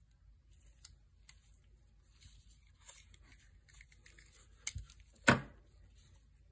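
Gloved hands handling a phone lens and its clip: soft rustling and small clicks, then two sharp knocks a little past the middle, the second the loudest with a short ring, as the clip is set down on the table.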